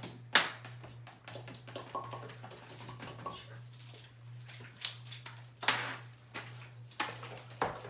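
A large batch of homemade slime being kneaded and mixed by hand, giving irregular wet squelches and sharp clicks, the loudest about a third of a second in, over a steady low hum.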